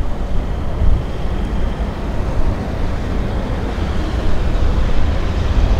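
Low, steady rumble of a Boeing 737-800's CFM56 jet engines as the airliner climbs away after takeoff.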